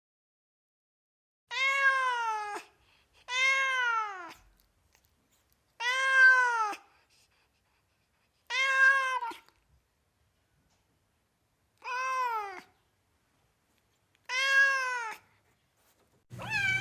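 Domestic cat meowing six times, each meow about a second long, rising then falling in pitch, with silence between. Just before the end a rougher call starts over a low hum.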